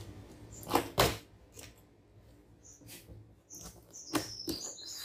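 A few sharp knocks and taps, the loudest about a second in, from cardboard packaging and parts being handled while a box is unpacked.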